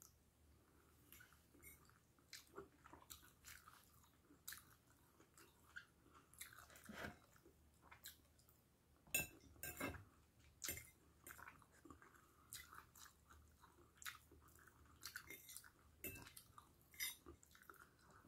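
Faint close-up chewing and biting of a mouthful of broccoli and minced pork: soft, wet, irregular clicks and crunches, with a few sharper clicks about nine to ten seconds in.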